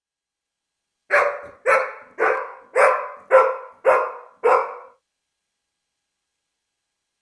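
A dog barking seven times in a steady run, close to two barks a second, then stopping.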